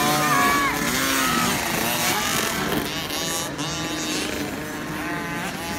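Small 50cc two-stroke motocross bikes revving hard through the gears as they pass, several high engine notes rising and falling over one another, easing a little toward the end.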